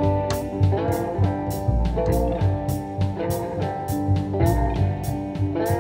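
Background music: a guitar tune with bending notes over a steady drum beat.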